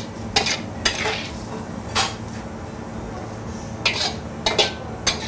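Metal wok spatula clanking and scraping against a wok as minced chicken is stirred and scooped out, about seven sharp irregular strikes, over a steady low kitchen hum.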